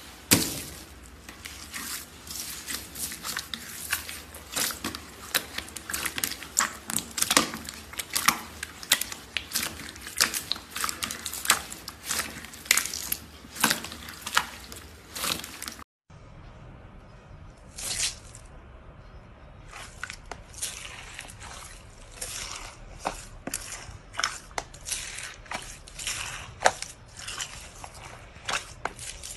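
Hands pressing, squeezing and stretching a clear purple slime packed with small beads, making dense, irregular crackling and popping clicks. The sound breaks off briefly about halfway through and goes on with a slightly duller crackle.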